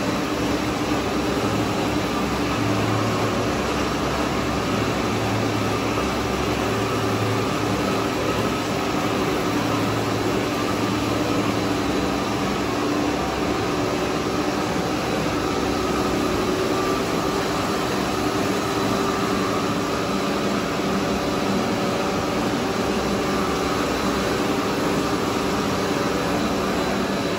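Steady drone of a running cast stretch-film production line: machine noise with a few constant hum tones, unbroken throughout.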